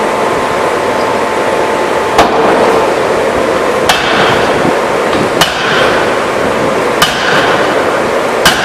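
Power forging hammer striking blows about every one and a half seconds, five in all beginning about two seconds in, each a sharp metallic impact with a short ring. Loud steady machine noise runs underneath.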